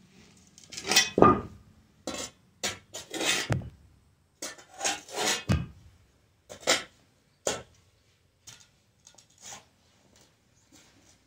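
Steel shovel blade scraping and chopping into hard-packed dirt, a quick uneven series of scrapes and knocks. The strokes are loudest in the first seven or so seconds, then trail off into a few light scrapes.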